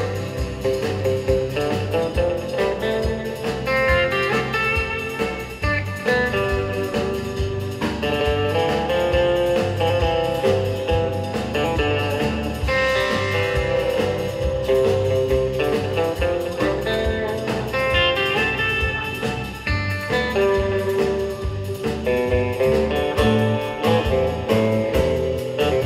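Live rautalanka band playing an instrumental: an electric guitar lead played on a Gretsch hollow-body with a Bigsby vibrato, over bass and a steady drum beat.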